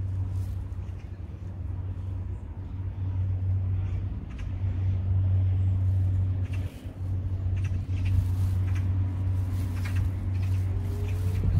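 A steady low rumble, dipping briefly a little past the middle, with a few faint clicks over it.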